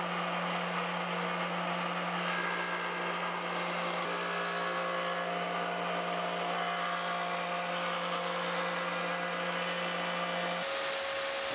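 Jointer running steadily with a low motor hum while a board is fed across its cutterhead. The sound shifts about a second before the end.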